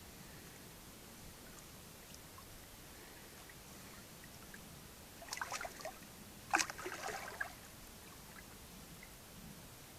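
A retriever splashing in shallow water as it wades: a short run of splashes about five seconds in, then a sharper, louder splash with dripping a moment later.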